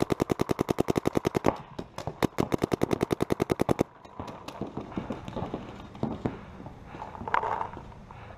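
Smart Parts Shocker RSX paintball marker firing in rapid strings of about a dozen shots a second: two strings of roughly a second and a half each with a short pause between. After that, only scattered fainter pops.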